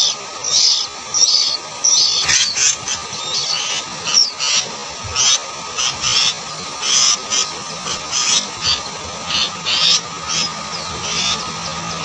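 Sooty-headed bulbul nestlings begging in the nest: a steady run of short, high-pitched calls, about one or two a second.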